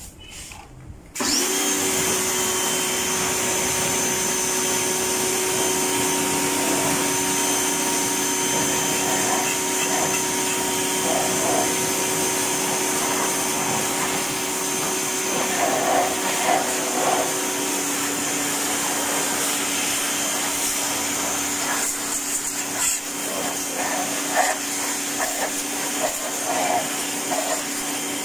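Daewoo 1200-watt electric pressure washer switching on about a second in, then running steadily. Its motor and pump give a steady hum and whine, and its water jet hisses against the car's radiator and AC condenser.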